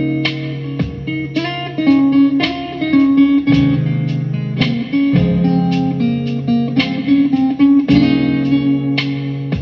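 Guitar music: plucked and strummed chords with sustained notes and a bass line, in a soulful, laid-back groove.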